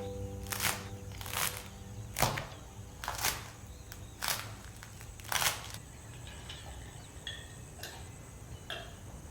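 Crisp crust of schiacciata bread crunching in sharp strokes about once a second, the later ones fainter.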